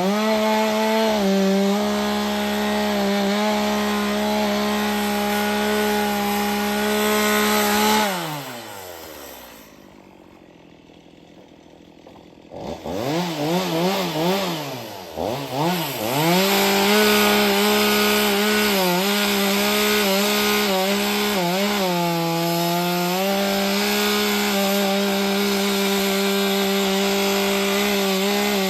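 A chainsaw on a chainsaw mill, running steadily under load as it rips lengthwise through a log. About eight seconds in the engine winds down and stops. A few seconds later it starts again, revs up and down several times, then settles back into the steady cut.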